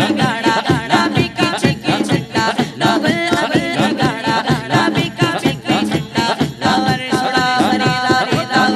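A boy singing an Islamic devotional song (nasheed) through a microphone and PA, over a quick, steady drum beat; from about seven seconds in he holds one long note.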